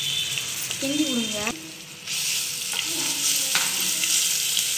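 Ginger-garlic paste frying in hot oil with mustard seeds and curry leaves in a nonstick pan, sizzling steadily as it is stirred with a wooden spatula. The sizzle dips briefly about a second and a half in, then comes back louder with a few crackles.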